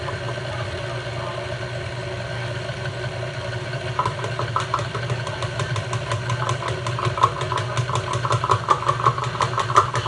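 Tilt-head stand mixer running steadily under load as it beats a stiffening batter. A rapid, regular ticking joins the motor hum about four seconds in.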